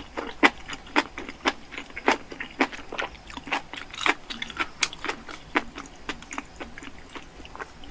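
Close-up sounds of a person chewing a burger with their mouth, a quick run of wet, smacking mouth clicks a few times a second.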